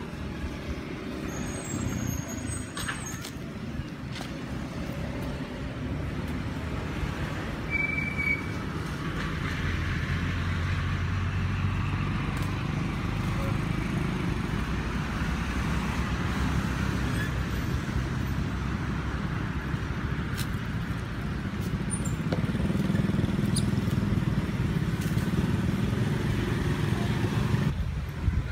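Motor vehicle traffic: a steady low engine rumble that swells about a third of the way in and again near the end, with a few brief high chirps over it.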